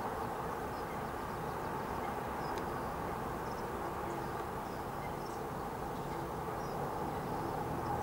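Steady outdoor background noise, with faint high bird calls now and then.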